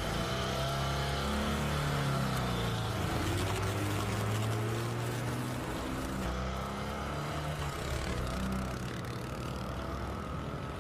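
Motor scooter engine running as it pulls away and grows fainter, with background music under it.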